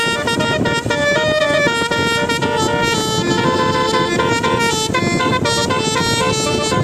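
Bus 'telolet basuri' musical horn playing a melody of quick stepping notes, over a constant noisy background.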